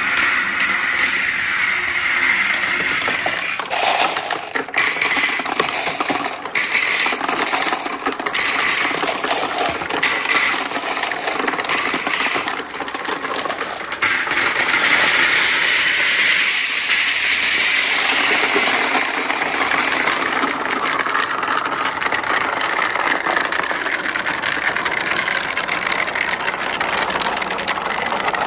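Marbles rolling and clattering along the tracks of a marble run: a continuous rattle of many small clicks that swells and eases as the balls move through the course.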